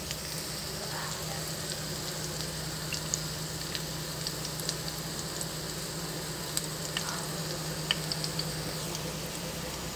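Minced-shrimp and scallion patties shallow-frying in hot fat in a pan: a steady sizzle with scattered small pops and crackles. The patties are still browning, not yet golden enough to turn.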